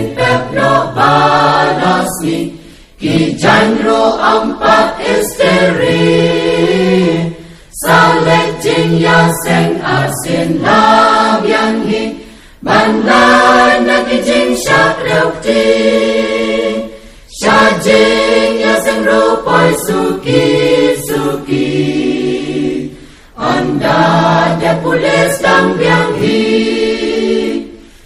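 A group of voices singing a Khasi gospel hymn in phrases about five seconds long, with a short breath-like pause between phrases.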